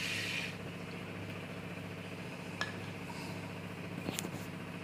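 Mustard seeds poured into hot oil in an aluminium kadai: a brief sizzle as they land, then a few sharp pops as the seeds begin to splutter, over a low steady hum.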